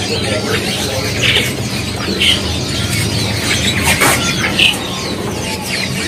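Many caged songbirds chirping and calling at once, short scattered calls over a steady low hum, with a sharp click about four seconds in.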